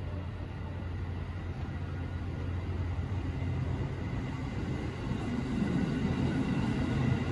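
JR East E257 series 5500 electric train running slowly into the platform, a steady low rumble that grows louder about five seconds in as the cars pass close by.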